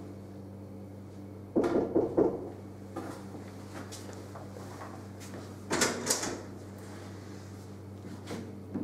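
A few short clatters and knocks from the handle and lock of a wooden front door being worked and opened, in three brief clusters, over a steady low hum.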